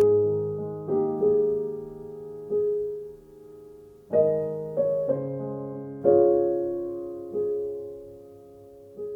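Slow, gentle solo piano music: chords and single notes struck about once a second or so, each left to ring and fade.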